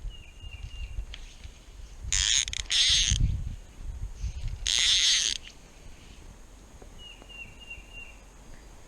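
A short run of high chirping notes from a small animal near the start and again near the end, with three loud rushing bursts of noise in the middle.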